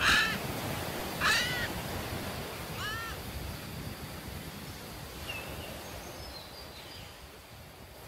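Harsh parrot squawks. Two loud ones come about a second apart, then they get fainter and sparser over a steady rushing outdoor background that fades away near the end.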